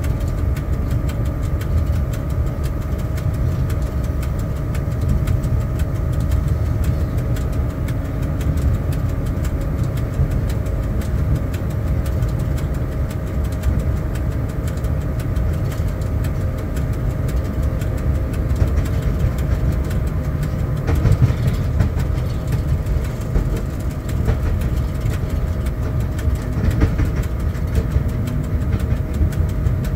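Cab noise of a ChS4 electric locomotive under way: a steady low rumble from the running gear with a constant hum over it, and a few short knocks about two-thirds of the way through.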